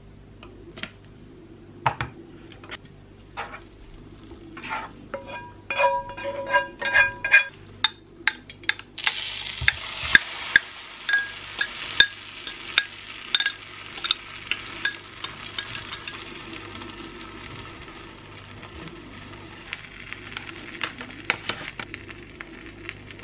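A non-stick frying pan sizzling steadily with sharp pops from about nine seconds in, as spinach, mushrooms and beaten egg fry in butter. Before that come a crinkle of foil and a series of clinks and taps of kitchen utensils.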